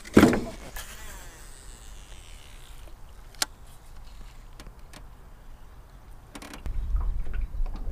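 Baitcasting reel whirring faintly and fading as line pays out on a cast, with a sharp click a few seconds in and a low rumble near the end. It opens with a brief knock.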